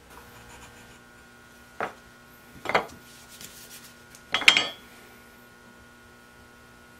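Short knocks and clatters of wooden pieces and tools being handled and set down on a workbench during a glue-up: three clusters, the last and loudest about four and a half seconds in with a brief ring. A faint steady electrical hum runs underneath.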